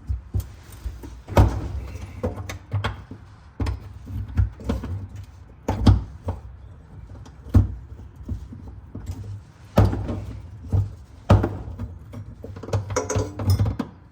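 Music with a heavy bass and a thumping drum beat.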